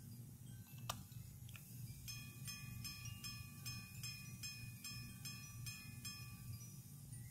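Quarter-repeating pocket watch striking: a sharp click about a second in, then the repeater strikes the same note over and over at an even pace, about two and a half times a second.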